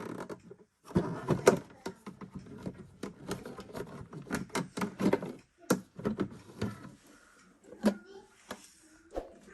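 Irregular clicks, knocks and rustling of plastic parts being handled, with a sharper knock about one and a half seconds in and another near the end.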